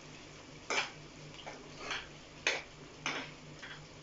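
A spoon scraping and knocking against a nonstick pan, about five short strokes, as fresh cream is stirred into a thick gravy.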